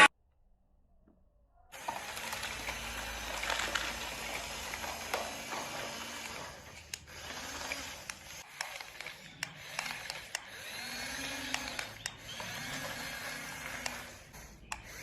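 A small motor whirring steadily, its pitch wavering at times, with scattered sharp clicks; it starts about two seconds in after a moment of silence.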